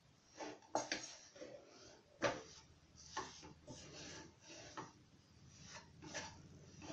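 Wooden spatula stirring rice flour into hot water in a steel pan, making faint, irregular scrapes and knocks against the metal as the mixture clumps into a stiff dough.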